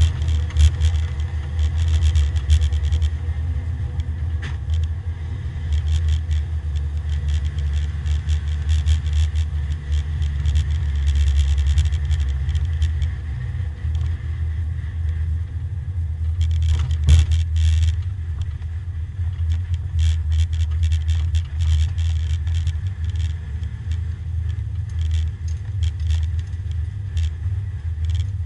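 Porsche 924 race car's four-cylinder engine running at low revs as the car rolls slowly, heard from inside the stripped cabin, with a steady low rumble and frequent small rattles and clicks. A brief louder clatter partway through.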